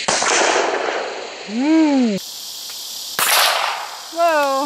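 Two gunshots about three seconds apart, each a sharp crack that trails off in an echo for most of a second, during target shooting at cans and bottles. Short pitched 'oh!'-like exclamations from a person follow each shot, one rising and falling, the other falling.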